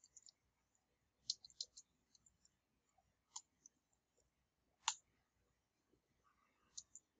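Faint computer keyboard keystrokes while code is typed: a quick run of about five clicks about a second in, then single, irregular keystrokes.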